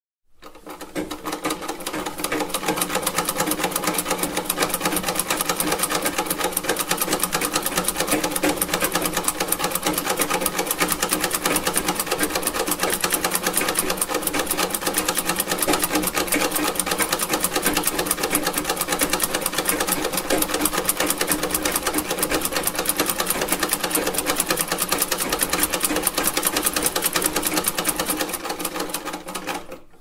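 Vintage sewing machine running at a steady speed, its mechanism clattering in a rapid, even rhythm. It fades in over the first couple of seconds and fades out near the end.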